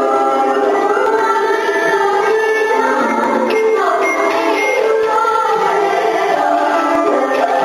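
Traditional Vietnamese water puppet theatre music: voices singing a melody over the ensemble's instruments.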